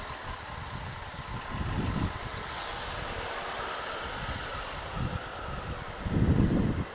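Honda Africa Twin CRF1000L's parallel-twin engine running at low speed in slow city traffic, with a city bus close alongside. Low rumbling swells come and go, the loudest about six seconds in as the bike moves out past the bus.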